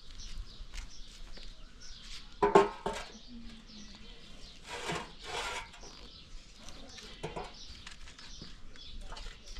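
Knocking and scraping of firewood being handled at an open cooking fire, with a loud clatter about two and a half seconds in and a longer scrape about five seconds in.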